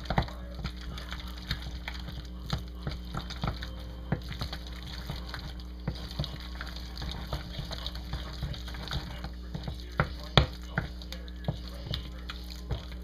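Wooden spoon beating an egg into sticky choux-style dough in a glass bowl: irregular wet squelches and knocks of the spoon against the glass, the sharpest knock about ten seconds in, over a steady low hum.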